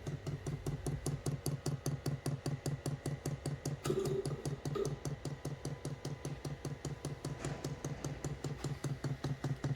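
Diesel heater fuel dosing pump clicking rapidly and evenly, about five ticks a second, as it runs in priming mode to purge air from the fuel line.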